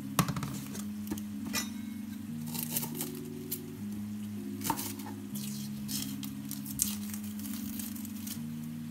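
Soft background music of low held notes, with light clicks, knocks and crinkling from a shallot being peeled with a knife on a plastic chopping board.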